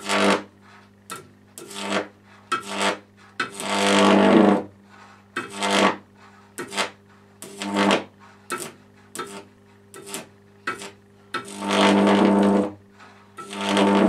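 High-voltage arcs drawn from a microwave oven transformer's output: a loud crackling buzz each time the arc strikes, over a dozen times. The longest come about four seconds in and near twelve seconds. Between the arcs the powered transformer keeps up a steady low mains hum.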